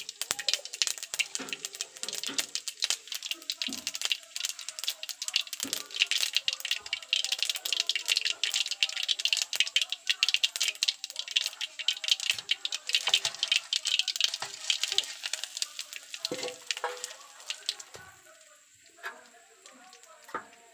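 Seeds tempering in hot oil in an iron kadai, a dense, fast crackling and popping that dies down near the end, with a few light knocks of the pan.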